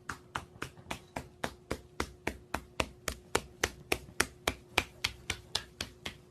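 Rapid, even knocking, about three and a half knocks a second, over a faint steady hum.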